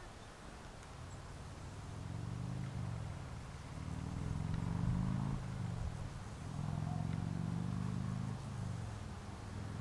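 Engine hum of a motor vehicle, building from about two seconds in and changing pitch several times as it runs, easing off near the end.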